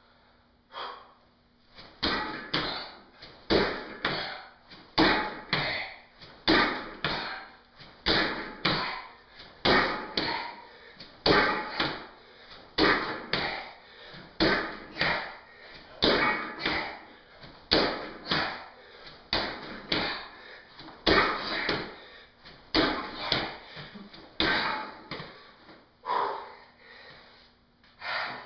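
Feet landing again and again on a padded weight bench and the floor during a set of box jumps: a steady rhythm of thuds, one to two a second, starting about two seconds in and stopping near the end.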